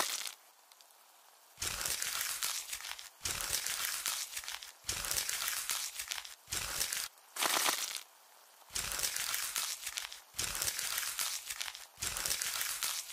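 Crunchy, crackling ASMR sound effects in about eight bursts of a second or so each, with short pauses between them, starting about a second and a half in.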